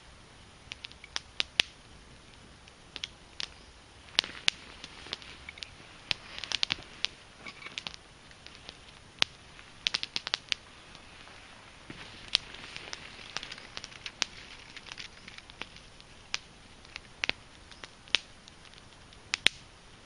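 Small fire of split Douglas fir kindling crackling: irregular sharp pops and snaps, some much louder than others, with a couple of stretches of soft hiss.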